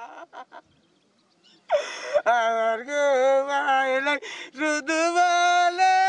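A man wailing and crying in grief: after a short near-quiet, long drawn-out crying notes that waver and climb in pitch, broken by gasping breaths.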